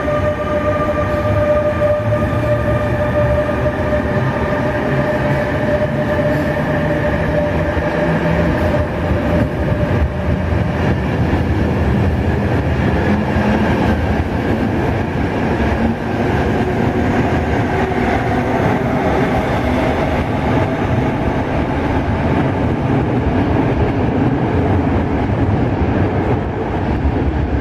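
Passenger train pulling out of an underground station, its coaches rolling past with a loud steady rumble. A steady high whine over the rumble fades out after about ten seconds.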